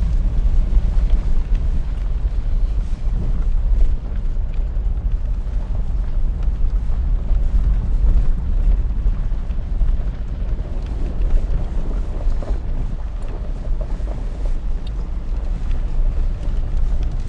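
Vehicle driving slowly on a dirt and gravel road, picked up by a camera on the hood: a steady low rumble of engine and tyres with wind buffeting the microphone.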